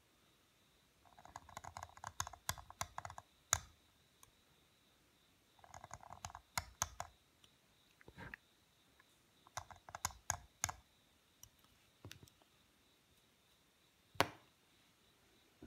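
Steel carving knife cutting and scraping into the face of a stone seal clamped in a seal vise: three short bouts of rapid, scratchy clicks, then a single sharp click near the end.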